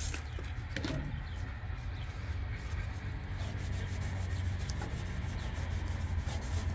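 A trigger spray bottle squirts about twice near the start. A cloth then scrubs and rubs over the painted sheet metal of a car hood's underside in quick repeated strokes, wiping off the degreaser. A steady low hum runs underneath.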